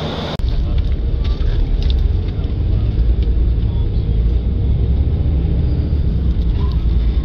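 Bus running, heard from inside the passenger cabin as a steady low rumble of engine and road noise; it comes in abruptly less than half a second in.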